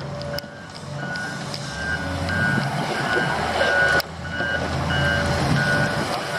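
A reversing alarm on a piece of construction machinery beeps steadily at about two beeps a second over the low running of its diesel engine.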